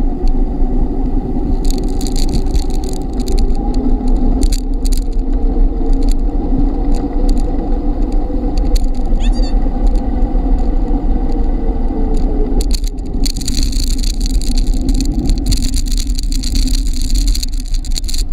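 Steady rumble of a bicycle rolling fast along an asphalt road, with wind on the microphone; the noise gets brighter about two-thirds of the way through.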